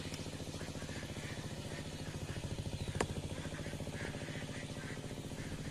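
A small engine idling steadily nearby, a fast, even putter. A single sharp click sounds about three seconds in.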